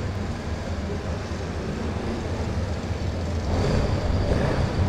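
Suzuki-built auto race motorcycle engine running steadily, a low drone that grows a little louder in the last second or so.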